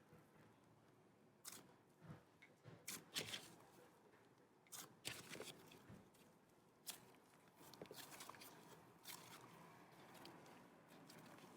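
Slime being squished and stretched by hand, making faint, irregular clicks and little pops.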